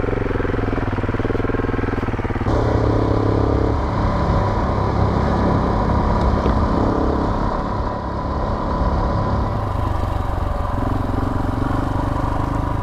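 Adventure motorcycle engine running on a rocky dirt trail, its note rising and falling with the throttle over a rough noise from the ground. The sound changes abruptly about two and a half seconds in.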